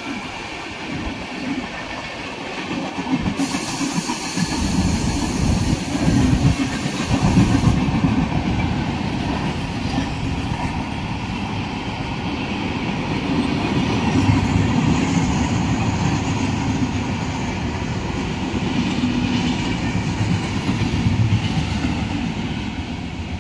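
LHB passenger coaches of an express train running through at speed, the wheels clattering over the rail joints with a steady rumble.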